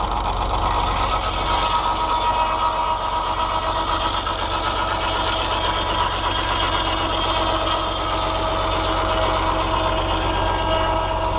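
Fordson Power Major tractor engine running steadily, driving a rack sawmill's large circular saw blade through the PTO, with a steady whine above the engine note.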